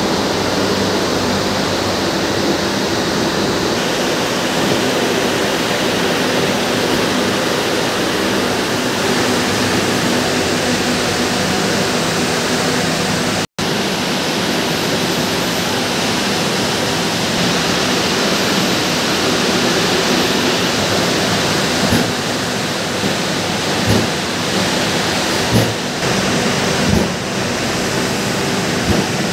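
Steady, loud whooshing hum of spinning-mill machinery, with Zinser simplex roving frames running. The sound drops out for an instant about 13 seconds in, and a few short knocks come through in the last several seconds as bobbins are handled.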